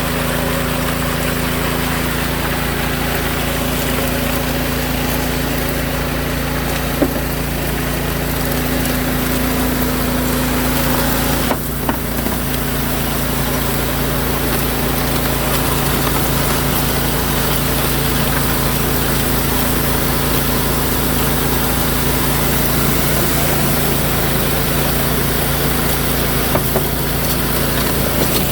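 Small engine of a portable water pump running steadily at a constant speed, pumping water to a sluice.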